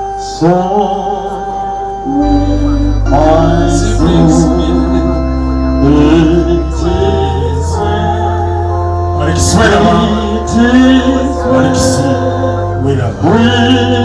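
A hymn sung over sustained electronic organ chords, with a deep bass line coming in about two seconds in.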